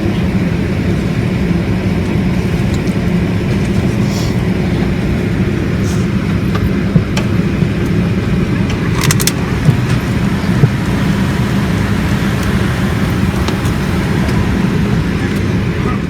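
Steady, loud drone of an airliner's engines and airflow heard inside the passenger cabin, with a few small clicks in the middle.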